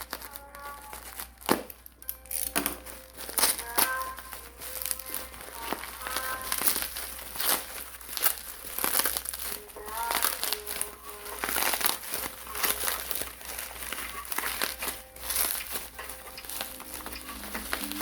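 Packaging crinkling and rustling in irregular crackles as a yo-yo is unboxed, over background music.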